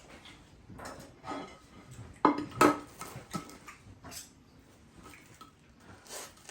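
Plates and cutlery clinking and knocking, a scatter of short clatters with the two loudest a little over two seconds in.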